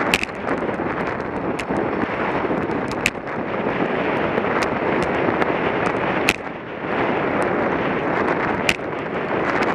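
Wind rushing over the microphone of a camera mounted on a racing bicycle at speed, with sharp knocks and rattles every second or two.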